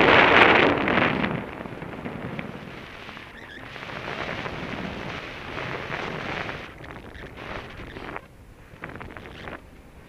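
Wind rushing and buffeting over a paraglider pilot's camera microphone in flight, loudest in the first second and then coming and going in weaker gusts.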